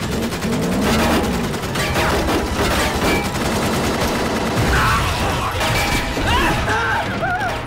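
Dense, sustained rifle and machine-gun fire from a war-film battle scene, with a music score underneath.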